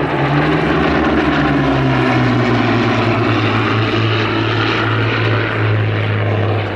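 Two Hawker Hurricanes' Rolls-Royce Merlin V12 piston engines droning steadily as the pair fly past in formation. The engine note drops a little about one to two seconds in.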